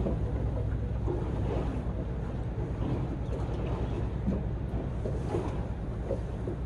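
A small fishing boat's engine running steadily at idle, a low hum, with wind on the microphone and the sea around the hull.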